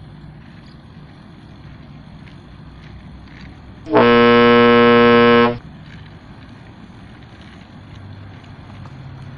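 A truck horn sounds once, a single steady low horn note held for about a second and a half, sliding up briefly as it starts and cutting off sharply. Faint steady background noise around it.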